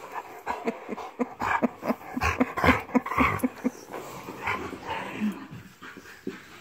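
A dog whimpering and yipping excitedly in a quick run of short, high-pitched cries, several a second, thinning out after about four seconds.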